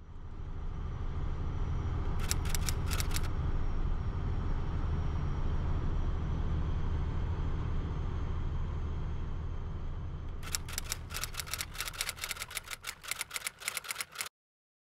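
Steady low rumble of a truck on the move, heard from inside the cab. Over it come rapid typewriter-style clicks, a short run about two seconds in and a longer one from about ten seconds in, until everything cuts off suddenly near the end.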